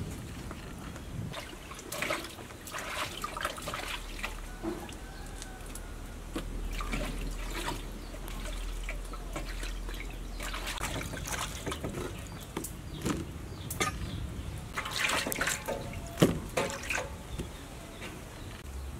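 Hands washing food in water in a stainless steel basin: irregular splashing and dripping as the pieces are rubbed and swished.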